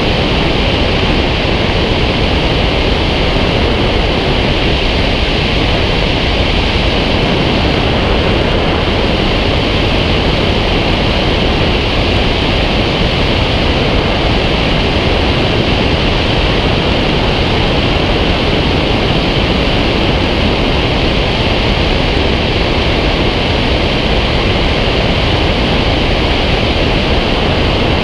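Loud, steady rush of airflow buffeting a wing-mounted action camera on a glider in flight.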